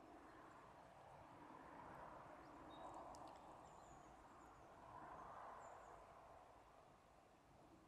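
Near silence: faint outdoor ambience with a few brief, faint bird chirps.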